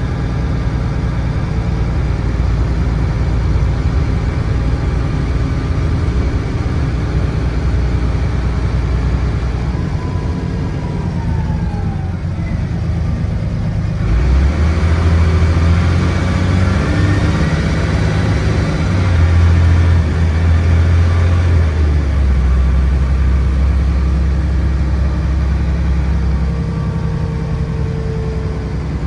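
Dennis Trident double-decker bus's diesel engine and Voith automatic gearbox heard from inside the saloon. The bus slows with a falling gearbox whine, then about halfway through the engine opens up loudly as it accelerates, with a rising whine, loudest about two-thirds through, before settling to a steady run.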